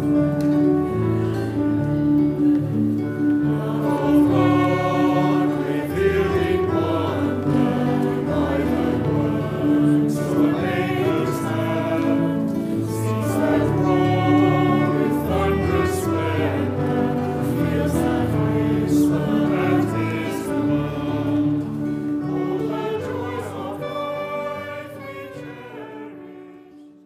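Closing music with a choir singing over a steady held note and moving bass, fading out near the end.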